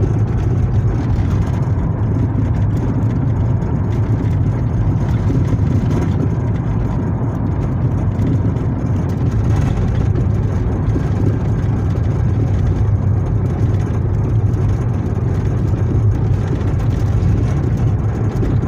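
Steady road and engine noise heard from inside a moving car, a low rumble with no sudden changes.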